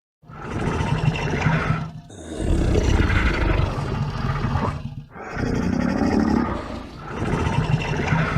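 Parasaurolophus dinosaur sound effect: four long calls, each lasting about one and a half to three seconds, running one after another with brief breaks between them.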